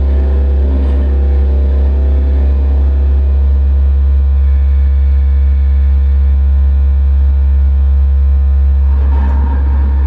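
Live electronic noise music: a loud, steady deep drone with held tones layered above it. A grainy, shifting texture over the drone thins out about four seconds in and builds again near the end.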